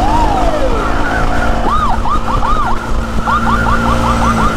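Police siren sounding over a motorcycle engine running at speed. It starts on a slow rise-and-fall wail, then switches to a fast yelp of rapid up-and-down sweeps in the second half.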